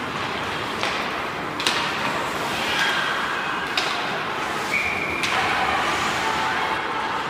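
Ice hockey rink during play: a steady hiss of skates on the ice, broken by four sharp knocks of sticks and puck, with a few brief high squeals over it.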